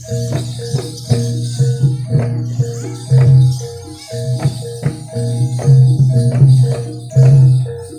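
Jaranan ensemble music: a steady repeating pattern of struck pitched gong notes over a pulsing deep tone, with sharp drum strokes and jingling percussion.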